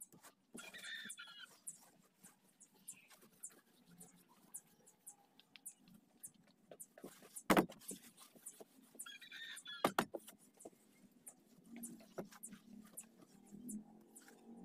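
Faint rubbing and handling noises on a fiberglass boat mould while release wax is worked in by hand, scattered with small clicks. Two sharp knocks come about halfway through, a couple of seconds apart. A short warbling chirp is heard near the start and again later.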